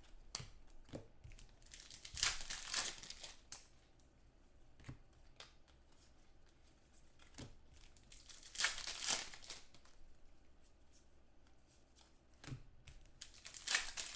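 Trading card pack wrappers crinkling as they are torn open and handled, in three bursts with light taps and clicks of cards between them.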